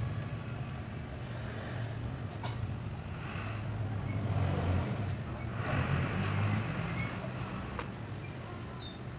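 Steady low rumble, with a few light knocks and short high chirps near the end.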